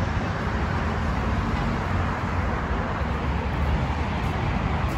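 Steady outdoor street noise: a low, even rumble of road traffic.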